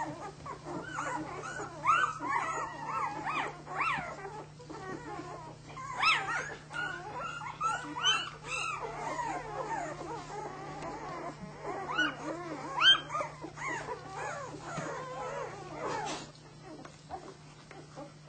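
Six-day-old flat-coated retriever puppies squealing and whimpering while they nurse, many high, wavering cries overlapping. The cries thin out to a few faint squeaks about sixteen seconds in.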